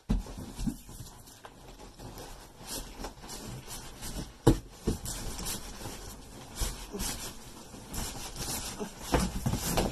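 Cardboard boxes scraping and rustling against each other, with several sharp knocks, as an inner guitar box is slid out of its outer shipping carton.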